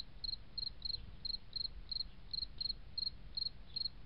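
Cricket chirping steadily, short high-pitched chirps of two or three quick pulses each, about three a second.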